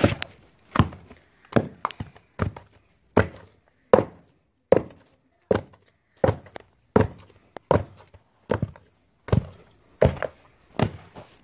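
Wooden pestle pounding boiled cocoyam in a wooden mortar to make achu: an even rhythm of dull thuds, a little faster than one a second.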